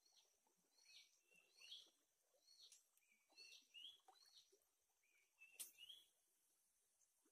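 Faint bird song: a short rising phrase repeated about once a second over a steady high hiss, with one sharp click a little past five seconds in.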